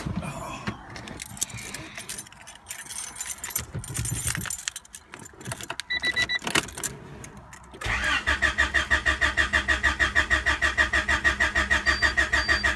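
Keys jangling and clicking, with a short beep about six seconds in. Then the 1992 Honda Accord's starter cranks the engine for about five seconds in a fast, even rhythm without the engine catching. It is a hard start that the owner traces to a bad coolant temperature sensor.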